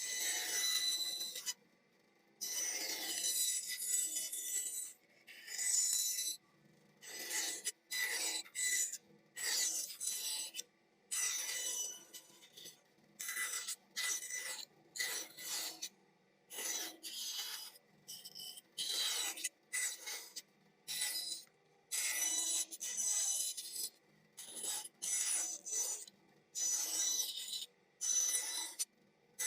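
A blade scraping and shaving across wood in many separate strokes, some short and some about two seconds long, with brief pauses between them.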